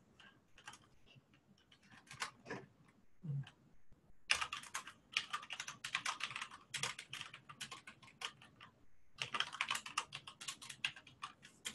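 Typing on a computer keyboard: a few scattered keystrokes, then from about four seconds in, two runs of rapid keystrokes separated by a short pause.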